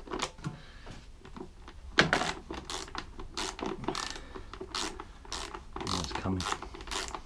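Hand ratchet clicking in short irregular runs as it turns a small bolt out of a generator's plastic housing.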